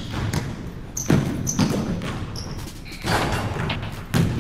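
Basketball dribbled on a hardwood gym floor: a few hard bounces, echoing in the gym.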